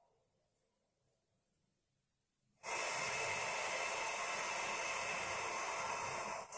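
A long, deep exhale close to the microphone: a steady, loud breath lasting about four seconds, starting after a couple of seconds of near silence and stopping shortly before the end.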